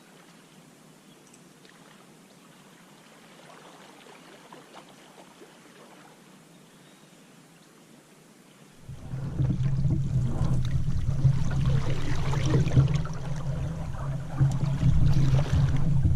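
Canoe on the water with soft water trickling for the first part. About nine seconds in, a loud rushing noise with a low rumble starts close to the side-mounted microphone as the paddle works the water, and it runs on unevenly.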